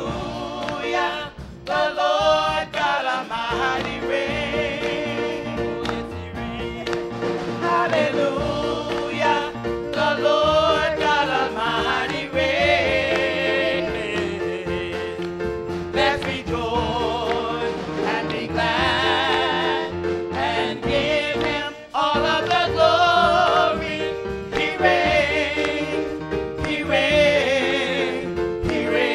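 Gospel praise team singing a worship song together, voices wavering with vibrato over steady held instrumental chords.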